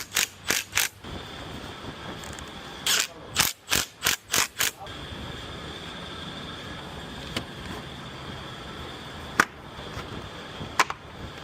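Hand ratchet wrench being worked in quick strokes, two short runs of about five or six clicks each, then a few single clicks: hose clamps being tightened on the intake tube couplers.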